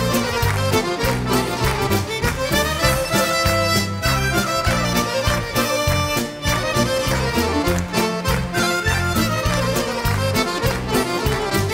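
Live band playing the instrumental break of a Serbian folk song, an accordion carrying the melody over a steady bass beat.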